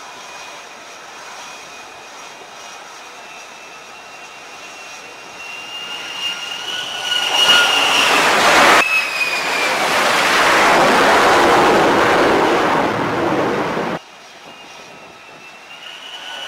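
F-35C Lightning II's single jet engine whining on approach, its high note slowly rising as the jet closes in. About nine seconds in the sound jumps to a much louder rush of jet noise as it lands, then cuts off abruptly some five seconds later and the softer approach whine begins again.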